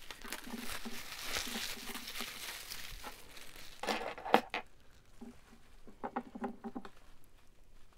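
Packing wrap crinkling and rustling as jewelry is unwrapped by hand, then a few sharp clicks, the loudest a little past the middle.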